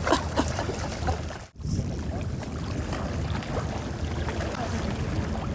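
Steady wind rumble on the microphone by the open sea. It cuts out for an instant about one and a half seconds in, then carries on unchanged.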